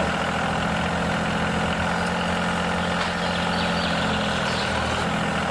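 Heavy truck engine idling steadily, a low, even running sound.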